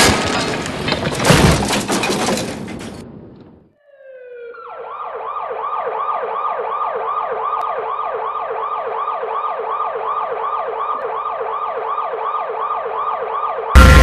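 Film soundtrack in a 5D cinema: a loud crash with breaking and shattering that fades away over about three seconds, then a siren rises and settles into a rapid yelping warble, about four cycles a second. A sudden loud hit cuts in near the end.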